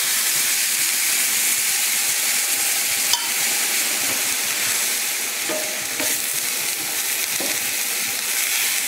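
Milk sizzling and hissing steadily as it hits a hot pan of ghee-fried bread cubes, while a wooden spatula stirs the mix, with a sharp click about three seconds in and a few light knocks later on.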